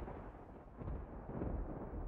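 Low rolling rumble of thunder from lightning in the Taal Volcano eruption plume, swelling and ebbing.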